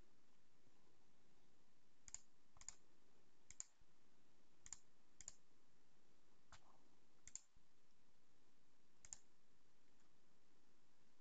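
Computer mouse clicking about eight times, single sharp clicks at irregular intervals, over near-silent room tone.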